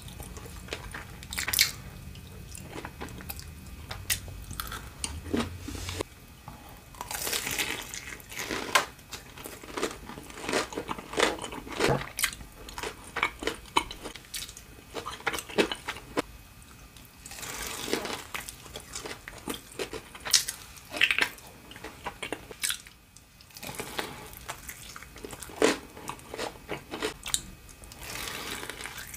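Close-miked biting and chewing of a deep-fried sushi roll with a crisp fried coating: crackly crunches and wet chewing clicks, with several spells of louder crunching as fresh bites are taken.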